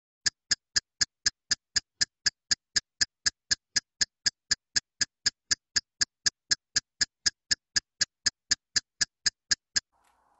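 Countdown timer ticking sound effect: rapid, even ticks, about four a second, stopping shortly before the end.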